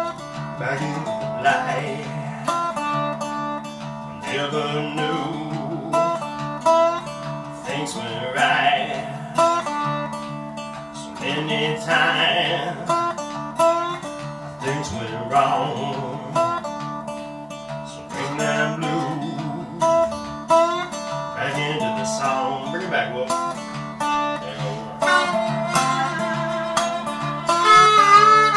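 Slow blues on a lap slide resonator guitar: slide notes glide and ring over a repeated bass figure. A blues harmonica comes in near the end with a wavering held note.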